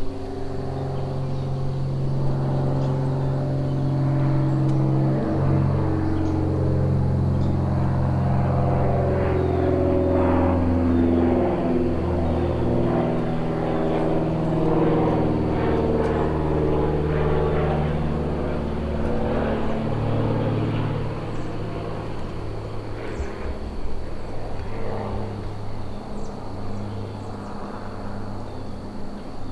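Engine drone of a passing motor vehicle, swelling over the first few seconds and fading away after about twenty seconds. A steady high insect buzz runs underneath.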